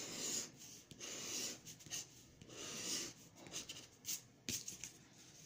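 Scratch-off lottery ticket being scratched, a run of short rasping strokes, with a couple of sharp ticks about four seconds in.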